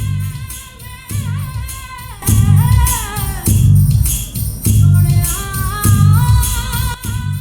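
Music with a steady bass beat, tambourine-like percussion and a sung or melodic line.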